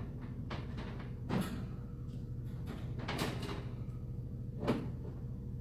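Liquid lip gloss being applied: the doe-foot wand stroked over the lips, making four short, soft swishing strokes spread over a few seconds, above a steady low hum.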